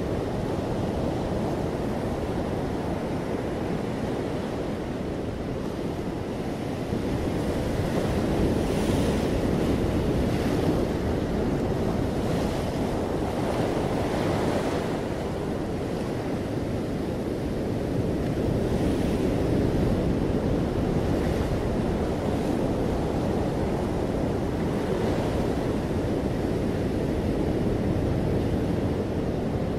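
Ocean surf breaking and washing up a sandy beach among rocks: a continuous rushing that swells louder with each incoming wave, several times over.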